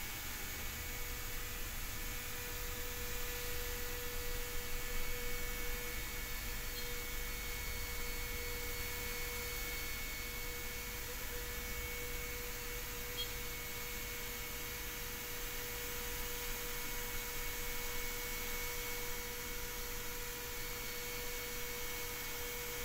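Kress 800 FME router spindle on an X-Carve CNC running with a steady whine while it carves with a 1/8-inch bit.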